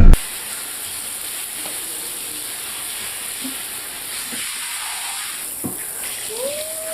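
Steady hiss. Near the end a faint tone rises, holds briefly and drops away.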